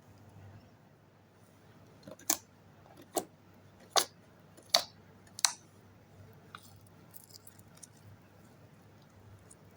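Five sharp clicks or taps of small hard objects, evenly spaced a little under a second apart, then a few faint small handling ticks.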